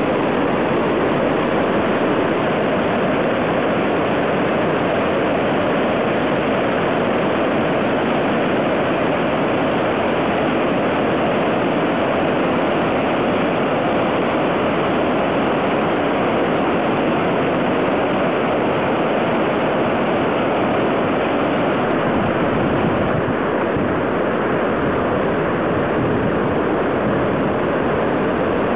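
A river in flood rushing through a rocky gorge: a steady, loud roar of white water.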